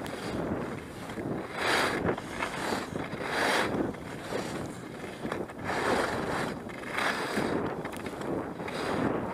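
Skis scraping and hissing over packed snow during a downhill run, mixed with wind rushing over the camera microphone; the rush swells and eases every second or two.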